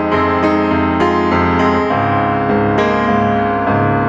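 Background keyboard music: a melody of notes struck every quarter to half second over steady bass notes.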